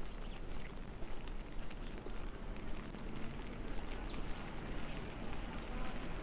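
Rainy city street ambience: a steady hiss of rain and traffic on wet pavement, with scattered faint ticks of drops.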